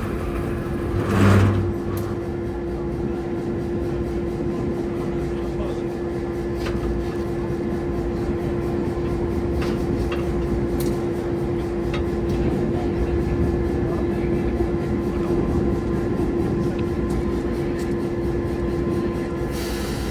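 EMD GP7 diesel locomotive idling while a turntable slowly swings it around, giving a steady hum over a low rumble. A brief louder low sound comes about a second in.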